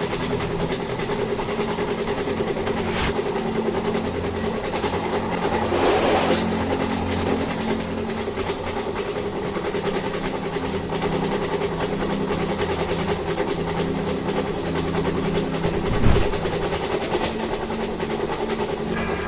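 Train running, a steady mechanical drone with several held low tones, broken by a few sharp clacks, one about three seconds in and another near sixteen seconds.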